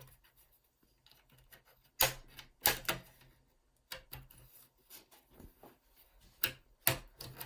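Plastic clips of an MSI GP66 Leopard laptop's bottom cover snapping loose under a pry pick, with small ticks and scrapes between. Sharp clicks come in pairs: two about two seconds in and two more near the end.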